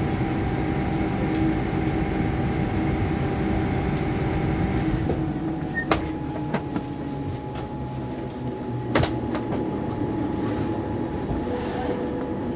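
Cabin noise of a Boeing 787-9 taxiing: a steady rumble and hum with a few high whining tones that cut off about five seconds in, leaving a lower, slightly quieter rumble. Two sharp clicks about six and nine seconds in.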